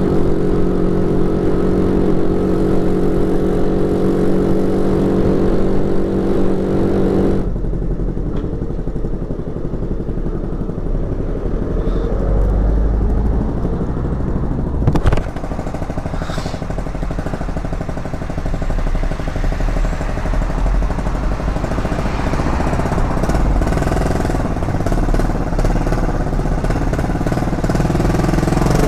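Moped engine running steadily under way, a clear even drone for the first seven seconds or so. After an abrupt cut it continues fainter under a heavy low rumble and noise of riding, with a brief click about fifteen seconds in.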